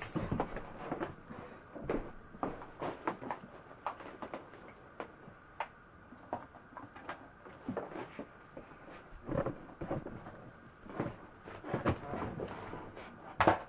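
Makeup products being rummaged for and handled: irregular clicks, knocks and rustles of cases and containers being picked up and moved, with a sharper knock at the start and another near the end.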